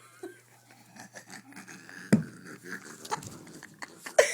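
A person's raspy, wheezing laugh noise: rough, rasping, irregular pulses of breath, with a sharp loud pop about halfway through.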